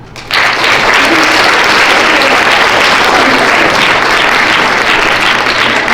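An audience of schoolchildren bursting into loud, steady applause, starting suddenly a moment in.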